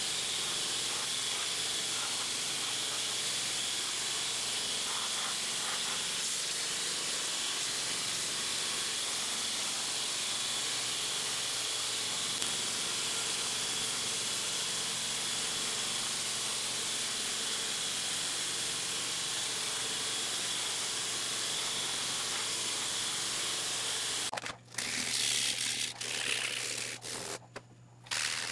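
Belt grinder running with a dog-hair micarta knife handle held against the belt: a steady hiss of abrasive grinding over a low motor hum. Near the end the sound breaks off briefly twice.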